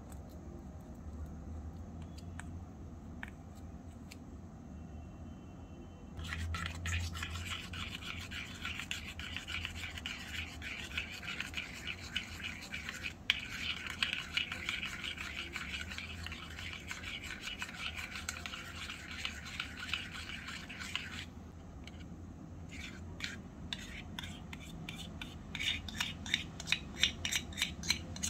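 A tiny spoon stirring a creamy mixture in a small metal bowl: a fast, continuous scraping that starts about six seconds in and stops suddenly after about fifteen seconds, followed by separate clinks and scrapes of the spoon against the bowl near the end.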